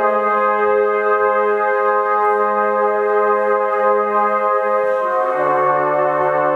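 Brass band playing long held chords in a slow passage, moving to a new chord about five seconds in with the bass stepping down.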